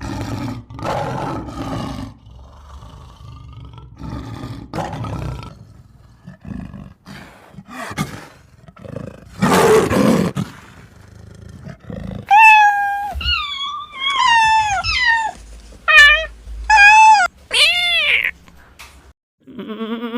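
An animal growling and roaring in several rough, low bouts, then a run of about eight short, high calls that bend up and down in pitch, like meows.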